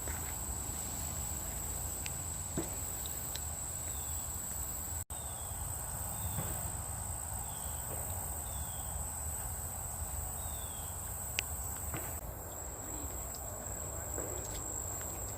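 Insects trilling in one steady high-pitched drone over a low background rumble. A bird gives a string of short, falling chirps, about one a second, in the middle.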